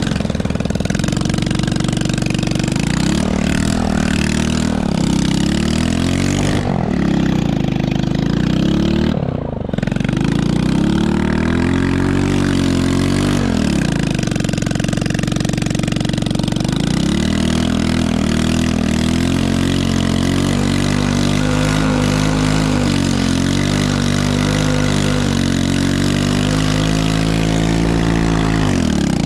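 Small 110cc ATV engine, a single-cylinder four-stroke, running under hard throttle, its pitch rising and falling again and again as it is opened up and eased off.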